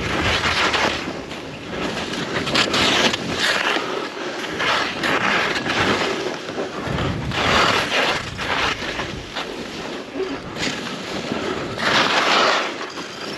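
Skis scraping over snow in a run of turns, the hiss swelling and fading with each turn, with wind rushing over the microphone.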